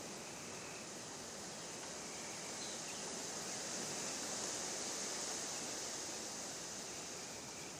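Steady outdoor hiss of open-air ambience under a stormy sky, swelling slightly midway, with a few faint short high chirps.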